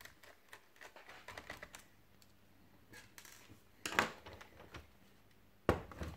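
Small scattered clicks of a screwdriver turning out a keyboard screw from the underside of a Lenovo ThinkPad T430s laptop. Then two louder knocks, about four seconds in and near the end, as the plastic laptop case is handled and turned over on the table.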